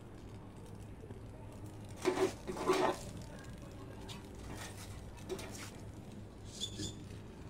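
Oxy-acetylene welding torch flame hissing steadily. A brief voice-like sound comes about two seconds in, with a few fainter short sounds later.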